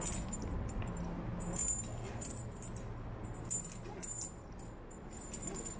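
Metal climbing hardware (carabiners and rope ascenders on a harness) clinking and jingling in short, irregular bursts as the climber steps up a stationary rope.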